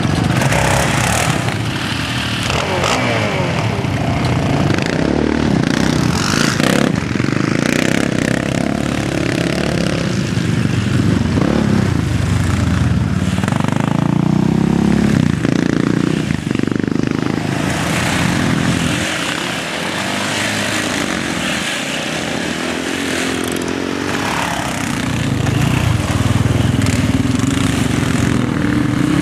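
Sport quad bike engines revving up and down over and over, the pitch rising and falling, as the quads spin donuts on soft ground; toward the end several quads run at once.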